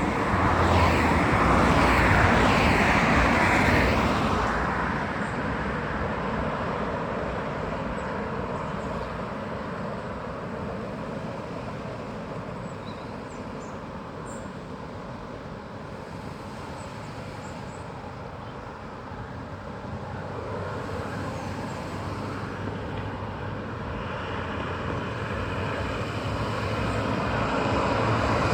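Vehicle noise: a loud roar in the first few seconds fades to a lower, steady rumble, then swells again near the end.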